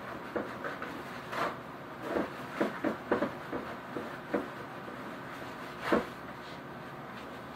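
Irregular short knocks, clacks and rustles of things being handled in a kitchen, about a dozen in all, with the loudest knock about six seconds in.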